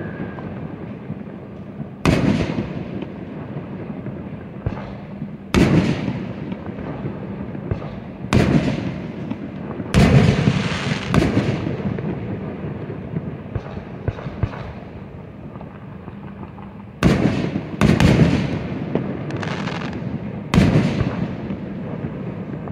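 Aerial fireworks shells bursting: about eight sharp booms at irregular intervals, each trailing off in a long echo, with smaller pops in between.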